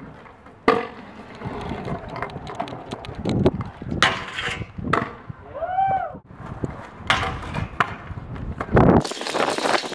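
Stunt scooter wheels rolling on concrete, broken by several sharp clacks as the scooter deck and wheels slam down on landings.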